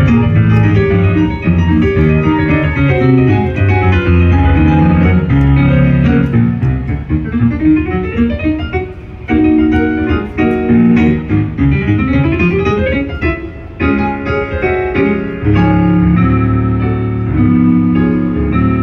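Solo acoustic piano playing ragtime. Busy chords in the bass and melody thin out to a lighter, quieter passage midway, then come back full shortly after.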